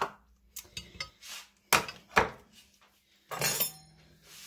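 Kitchen clatter: several sharp knocks and clinks of cutlery and kitchenware being picked up and handled on a counter, with a longer rattle a little after three seconds in.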